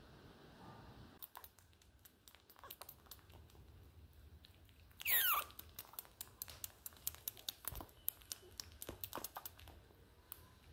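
Baby otter making quick soft mouth clicks and smacks against a fleece blanket. About five seconds in there is one loud, high squeak that slides steeply down in pitch.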